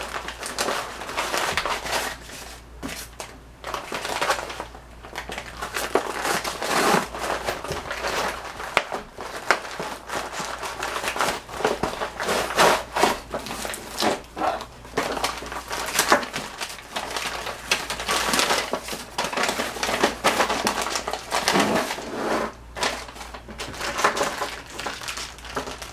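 Packaging crinkling and rustling in irregular handfuls as a parcel is opened and handled by hand.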